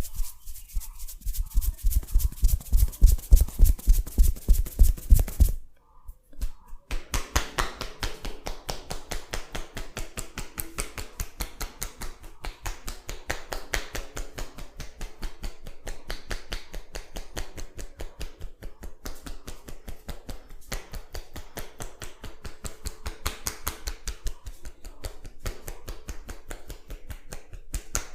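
Hands patting and tapping rapidly on a head during a champi head massage, several strikes a second. The strikes are heavy and thudding at first, break off briefly about six seconds in, then go on as lighter, quicker tapping.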